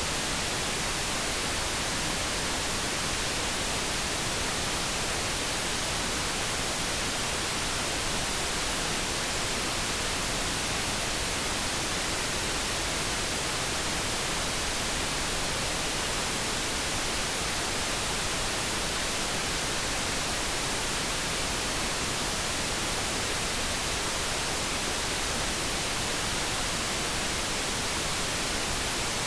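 Steady generated background noise: an even, unchanging hiss with no tones, clicks or changes in level.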